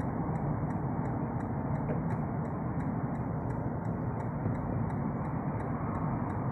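Car turn indicator ticking evenly, about three clicks a second, over the steady road and engine noise inside the moving car's cabin, as the car takes an exit.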